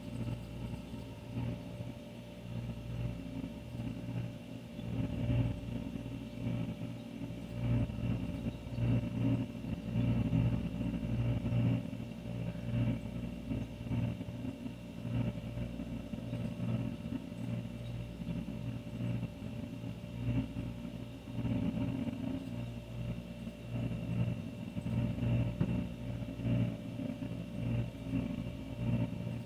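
Older refrigerator's compressor running, a steady low hum with a fainter high whine above it.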